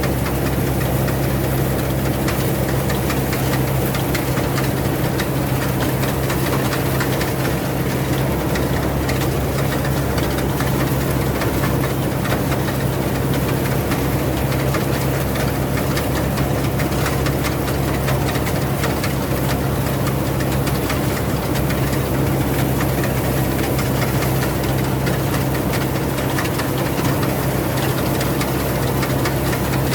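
Rice combine harvester running steadily: a constant low engine drone with a dense mechanical clatter over it, unchanging throughout.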